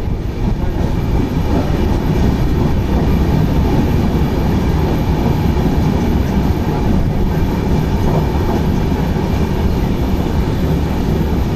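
Loud, steady rumble and rush of LHB passenger coaches running past at speed on the adjacent track, at close range.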